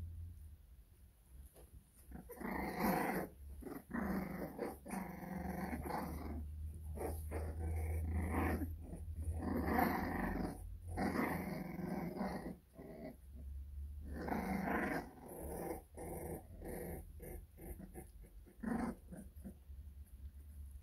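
American Bully puppies growling in play as they wrestle, in repeated bouts of about a second with short pauses, starting about two seconds in, over a steady low hum.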